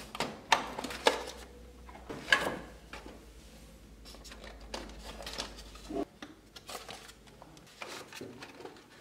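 Foam packaging trays and a metal tin box being handled: a few sharp knocks and rustles in the first few seconds, then softer scattered handling sounds.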